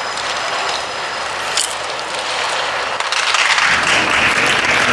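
Audience applause, light at first and swelling to full clapping about three seconds in.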